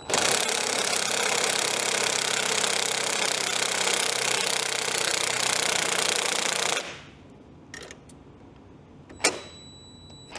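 Cordless impact driver running continuously, backing off the threaded rods of a coil-spring compressor to decompress the spring on a motorcycle rear shock. It cuts off suddenly about seven seconds in, followed by a couple of light clicks.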